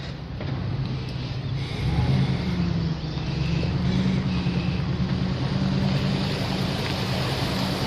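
A small boat motor running steadily on the water, a little louder from about two seconds in, with wind on the microphone.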